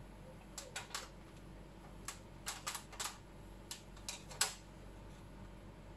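Backlight-tester probe tips clicking and tapping against the LED strips and metal back panel of an opened LED TV while the LEDs are tested: about ten short, sharp clicks in irregular clusters, the loudest about four and a half seconds in, after which they stop.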